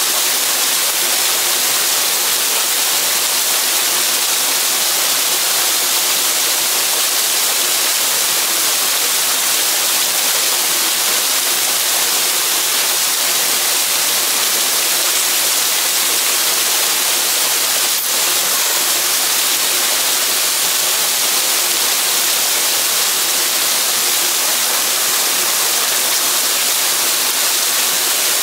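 A small waterfall pouring into a rock pool: a steady, unbroken rushing hiss of falling water.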